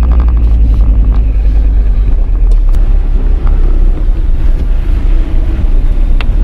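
Steady low rumble of a vehicle driving, heard from inside the cabin: engine and road noise, with a few faint clicks.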